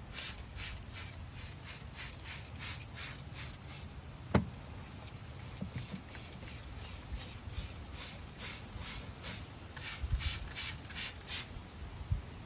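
Rhythmic scrubbing strokes, about two to three a second, as the Litter-Robot 4's globe is scrubbed clean during washing, with one sharp knock a little over four seconds in.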